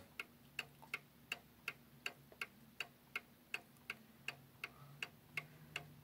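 Sessions beehive mantle clock ticking steadily, its escapement beating about three times a second with light, sharp ticks.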